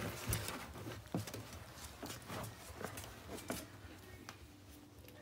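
Shar Pei puppies and their mother dog moving about on blankets: soft rustling with scattered light taps and knocks, thinning out after about four seconds.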